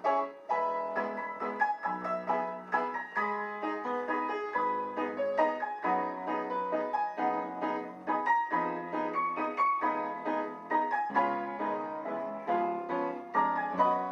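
A restored 1920s foot-pumped player piano (pianola) playing a perforated music roll: quick, busy piano notes over a regular bass line.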